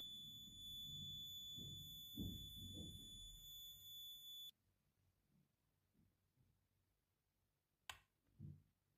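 Near silence: faint room tone with a faint steady high-pitched whine that cuts off about halfway through, then a single sharp click and a soft knock near the end.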